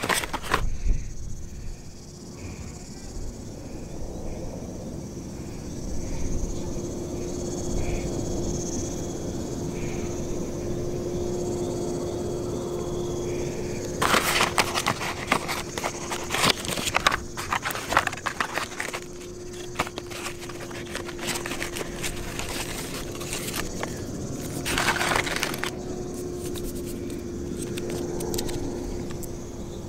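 Crickets and other night insects calling steadily over a low steady hum. Past the middle come about five seconds of close rustling and crackling from handling, and a shorter burst a little later.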